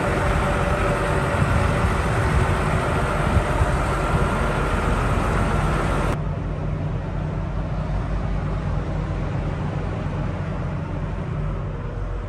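The Hitachi Zaxis 350LCN-3 excavator's six-cylinder diesel engine idling steadily, heard close. About six seconds in the sound turns abruptly duller and slightly quieter.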